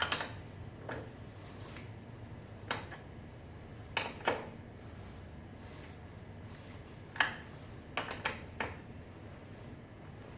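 Light metallic clinks and taps of hand tools and small metal parts being handled, irregular and spaced out, with a quick run of three near the end.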